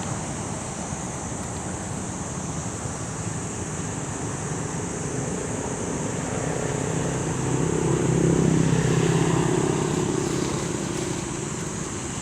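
Steady outdoor background noise with a motor vehicle engine that gets louder past the middle and then fades.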